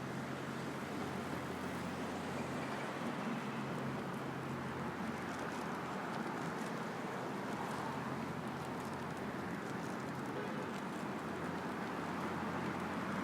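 City street ambience: a steady wash of traffic noise with a low engine hum underneath.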